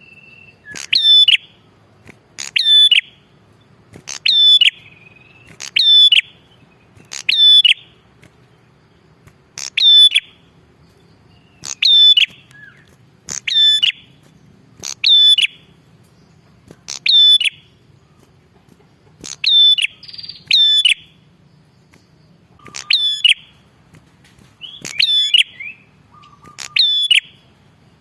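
A red-headed prenjak (prinia) calling loudly and persistently. Sharp, repeated chirps come about every one and a half to two seconds, each one a quick down-and-up stroke.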